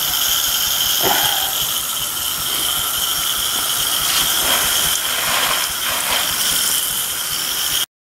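Hose-end sprayer jetting a water-and-insecticide mix onto house siding: a steady hiss of spray. It cuts off suddenly near the end.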